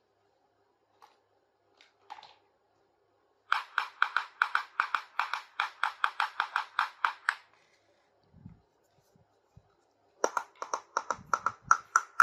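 Small plastic toy parts clicking in quick, even runs, about five or six clicks a second, each with a slight ring. There is one run of about four seconds, then a second run near the end, with a couple of soft low thuds between and under them.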